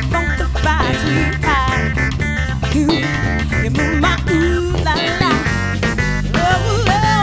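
A live soul band playing a groove, with guitar over bass and drums.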